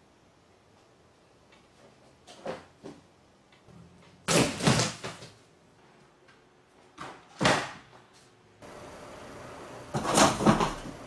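A cat scrambling at and into containers: a few short bursts of scraping and knocking, the loudest near the end as it clambers into a tall cardboard box.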